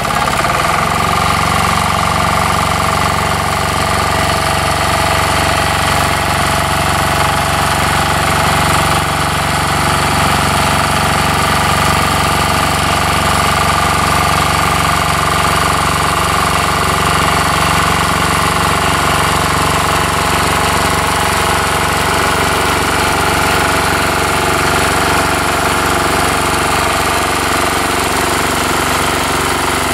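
Chinese 10-horsepower single-cylinder diesel engine on a Sears Suburban ST16 garden tractor, running steadily as the tractor drives along. It is held below full speed because it is still being broken in.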